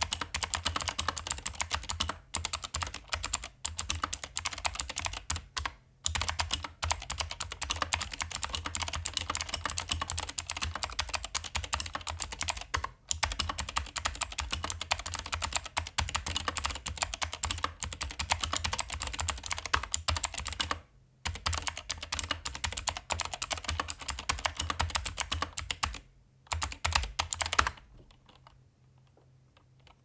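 Fast typing on a Keychron K8 mechanical keyboard fitted with Keychron optical blue clicky switches: a dense, steady stream of key clicks broken by short pauses every few seconds, stopping shortly before the end.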